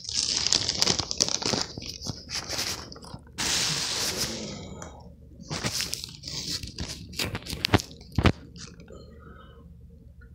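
Close handling noise as a phone camera is set up on a table: rustling, scraping and crinkling with sharp clicks and knocks, heaviest in the first half, with two sharp knocks about eight seconds in.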